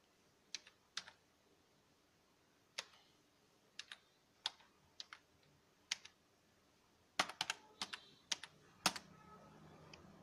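Computer keyboard keystrokes typing a captcha word: scattered single key presses, then a quick run of keys about seven seconds in.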